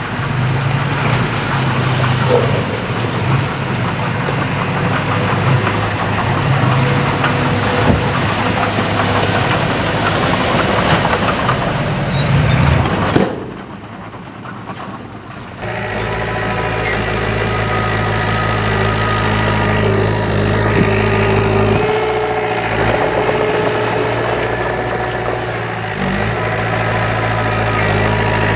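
Diesel engine of heavy earthmoving machinery running hard, cut off abruptly about 13 seconds in. After a short quieter gap an engine runs steadily, idling.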